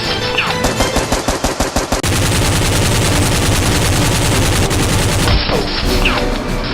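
Rapid automatic gunfire sound effects. The first two seconds are fast shots at about ten a second, then a dense unbroken barrage for about three seconds, with a few short falling whistles like ricochets.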